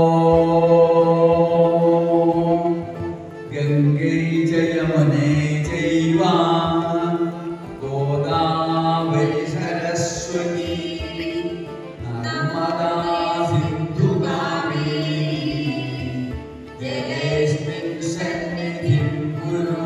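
Devotional singing: a slow chant sung in long, held phrases, typical of the hymns sung during a pooja.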